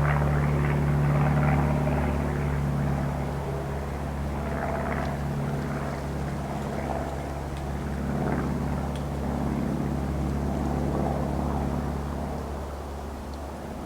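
A steady, low engine drone, likely from an aircraft passing overhead, fading away over several seconds, over a rushing of wind through the trees.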